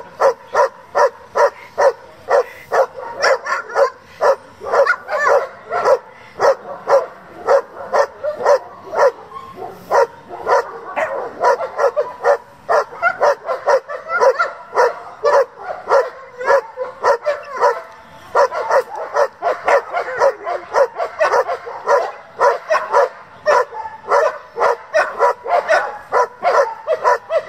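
German Shepherd barking hard and without pause, about two barks a second, at a helper with a bite sleeve during protection training.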